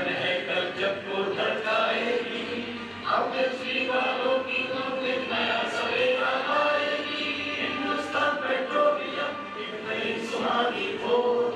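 A group of voices singing a devotional chant in unison, with long held notes in phrases a few seconds apart.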